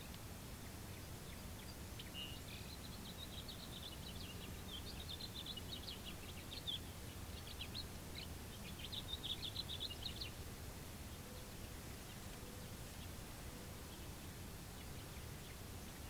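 Tree swallows twittering: a run of quick, high chirps from about two seconds in, loudest just before it stops about ten seconds in, then only a few faint chirps over a low background hum.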